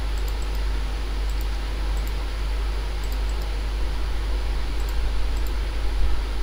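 Steady hiss with a strong low hum, the background noise of the recording microphone, with faint, irregular high ticks scattered through it.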